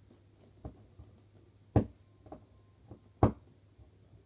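Cardboard box of a Nerf blaster being handled and pulled at while being forced open: about half a dozen sharp knocks and taps, the two loudest just under two seconds and just over three seconds in.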